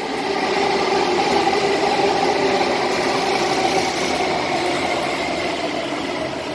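Singapore MRT North South Line train heard from inside the carriage: a steady rumble and rush of running noise with a motor whine that falls slightly in pitch and fades near the end as the train slows for a station.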